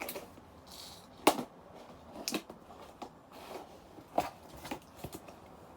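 Packaging being handled and opened by hand: a handful of short, sharp clicks and crackles, the loudest about a second in.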